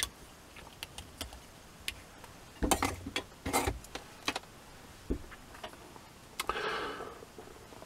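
Crocodile-clip test leads being unclipped from a small audio output transformer's solder tags and set down: a scatter of light clicks and taps, busiest about three seconds in. Near the end comes a short rustle as the transformer is picked up off a cloth.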